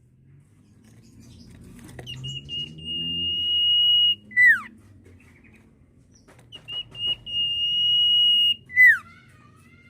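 Sirtu (common iora) whistling its song twice: each time a long, steady, high whistle that grows louder for about two seconds, then a short note sliding sharply downward. The first ends about four seconds in, the second near the end.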